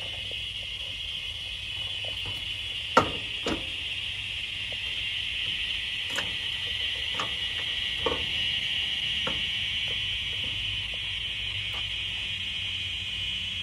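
About half a dozen sharp knocks and taps from hand work on the go-kart's engine mount, the loudest about three seconds in with another half a second later. Under them runs a steady high-pitched insect chorus.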